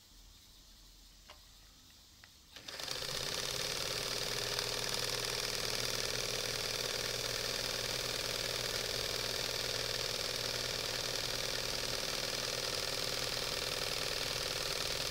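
Singer 320K zigzag sewing machine starting up about two and a half seconds in, after a couple of faint ticks, then running steadily at an even speed as it sews zigzag stitching through heavy leather-look material.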